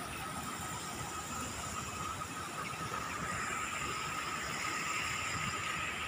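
Water trickling and splashing over the rocks of a small stream cascade, a steady rushing noise with a thin steady high tone over it.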